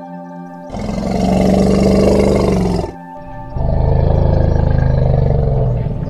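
Asian elephant giving two long, loud roars, each lasting about two seconds: the first about a second in, the second lower-pitched after a short gap.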